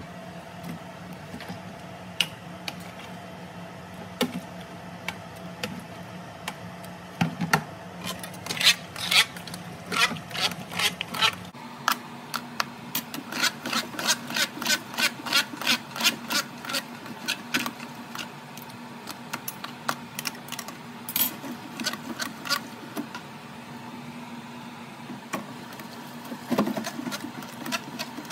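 Stainless steel food mill being cranked clockwise and counterclockwise, its blade scraping and clicking against the sieve plate a couple of times a second as it presses tomatoes through into purée. A steady hum runs underneath.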